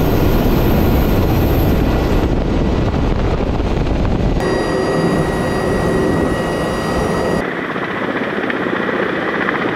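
Kamov Ka-52 attack helicopters in low flight: loud, steady noise of the coaxial rotors and turbine engines, with a steady whine in the middle. The sound changes abruptly about two, four and a half and seven and a half seconds in, as the recording switches between shots.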